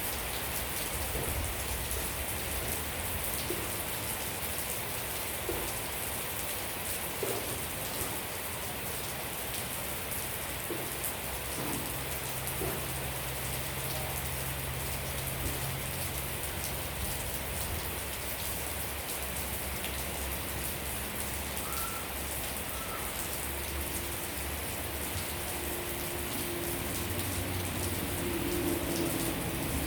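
Steady rain falling, a dense even patter of drops hitting surfaces.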